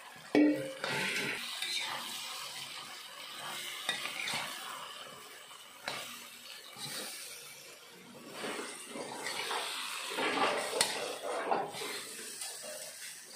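A spatula stirring and scraping morning glory around a hot frying pan in uneven bouts, with sizzling and a few sharp knocks of the utensil against the pan.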